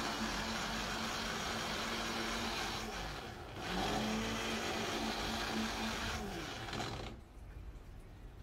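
Small electric blender running, puréeing half a tomato in water. The motor winds down about three seconds in, starts up again a moment later, then winds down and stops near the end.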